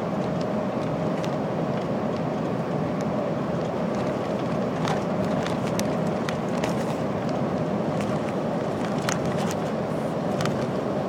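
Cab interior of a MAN TGA 480 truck at cruising speed: the steady drone of its straight-six diesel and the road noise, with a steady tone running through it. Scattered light ticks and rattles come mostly in the middle.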